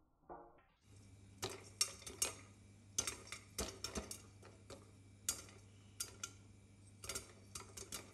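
Popcorn kernels popping in hot oil in a covered pan: irregular sharp pops, a few a second, some in quick pairs. Underneath, a steady low hum and faint hiss start about a second in.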